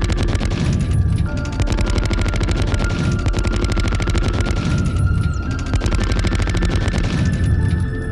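Soundtrack music with rapid machine-gun fire laid over it in long bursts.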